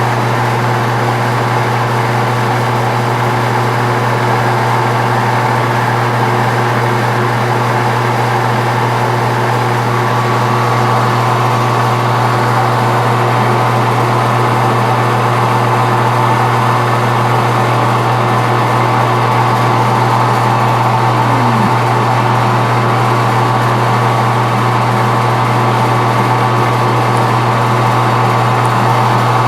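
Metal-turning lathe running steadily with a constant hum and several steady tones, the cutting tool taking very light cuts that are mostly air. A short falling tone sounds once about 21 seconds in.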